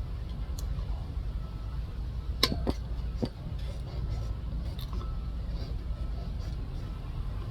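Steady low rumble of a vehicle running, with a few sharp clicks and taps about two and a half seconds in and another a little after three seconds.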